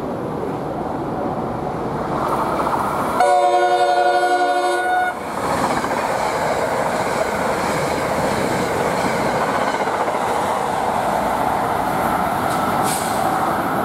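NJ Transit Comet V cab car's air horn sounding one blast of about two seconds as the push-pull train approaches at speed, followed by the steady rush and wheel clatter of the coaches racing past.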